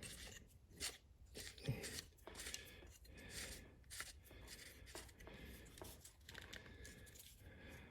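Faint, irregular clicks and scrapes of a chainsaw-sharpening attachment being screwed onto a rotary tool and adjusted by hand.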